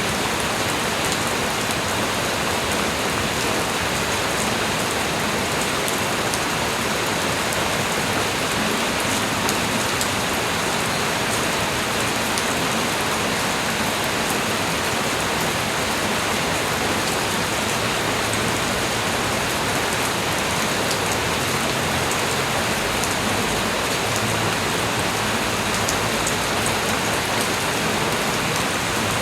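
Steady light rain falling and pattering on surfaces, with fine drop ticks.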